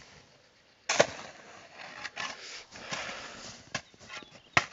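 Folding shovel digging into packed snow: a sharp strike about a second in, then scraping and crunching as snow is scooped and piled, with a few more sharp knocks near the end.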